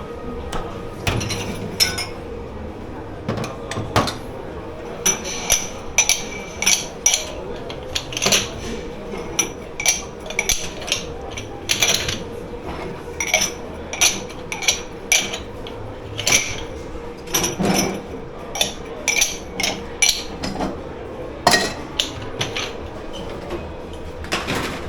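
Dishes and cutlery clattering as they are handled in a commercial dish pit: dozens of sharp, irregular clinks and knocks, with a steady faint hum underneath.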